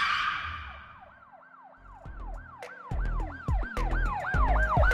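Yelping siren sound effect, its pitch sweeping up and down about three times a second, layered over deep bass hits that come in about two seconds in, after a whoosh at the start.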